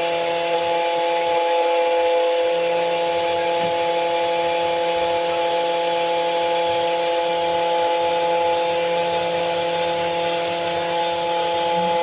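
KNC-91 automatic key cutting machine's spindle running, its small end-mill cutter milling the blade of a brass key blank: a steady, fairly loud whine with several held tones. The speaker puts the noise down to the hard brass of modern key blanks.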